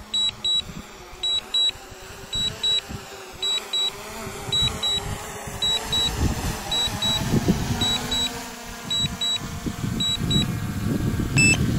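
Double warning beeps repeating about once a second, the DJI Mini 3 Pro's return-to-home landing alert, which stop about ten and a half seconds in and give way to a different short beep. Under them the drone's propeller hum grows louder as it descends toward the pilot.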